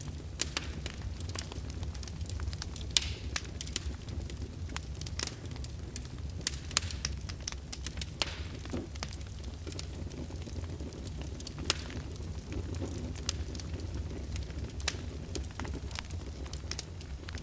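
Open fire in a fireplace crackling, with frequent sharp pops and snaps at irregular intervals over a steady low rumble.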